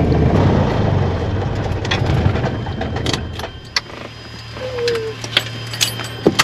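Piper PA-28 light aircraft's engine running at idle, heard inside the cabin, then dying away about three seconds in as it is shut down. A steady low hum stays, with a few sharp clicks near the end.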